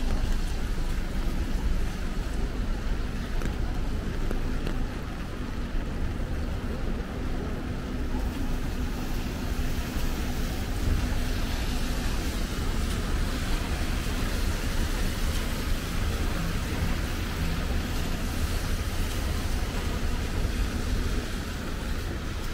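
Traffic on a rain-wet city street: cars passing with their tyres hissing on the wet road over a steady low rumble. The hiss grows louder about ten seconds in as a car passes close.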